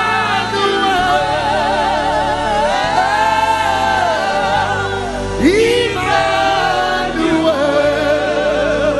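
Live gospel worship music: several voices sing long held notes with vibrato over steady instrumental backing, with a sliding vocal run about five and a half seconds in.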